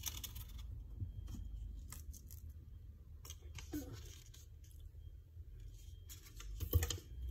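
Plastic spoon scraping and clicking against the inside of a marble mortar, stirring powdered crushed candy. A few louder knocks near the end.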